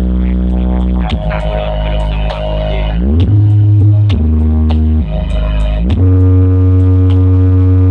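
Electronic trap-style music played loud through a large sound-system rig of stacked subwoofers: deep sustained bass notes that slide up to a new pitch every couple of seconds, with crisp ticking hi-hats over them.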